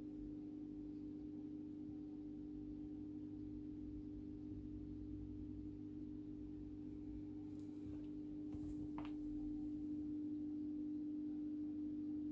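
Steady low hum of aquarium equipment running, most likely the filter pump motor, with a few faint clicks about two-thirds of the way through.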